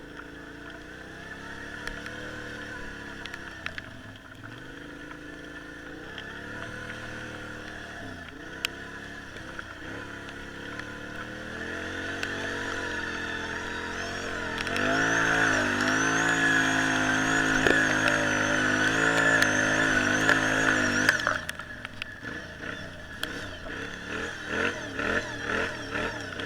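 Off-road vehicle engine being ridden, its pitch rising and falling as the throttle opens and closes. It gets louder and stays revved for several seconds past the middle, then drops away suddenly near the end.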